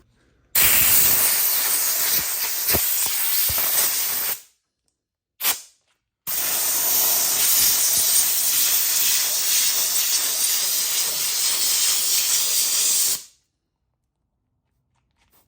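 Loud, steady hiss in two long blasts of about four and seven seconds, with a short puff between them; each starts and cuts off abruptly.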